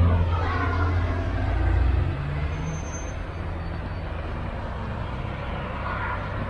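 A motor vehicle driving past on the road, its engine drone falling in pitch and fading away about two seconds in.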